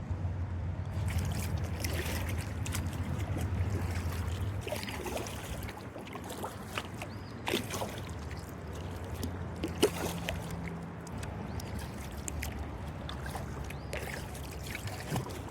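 Kayak paddle strokes: the blade splashing in and out of the river and water trickling off it in many small irregular splashes, the sharpest about ten seconds in, over a low steady rumble.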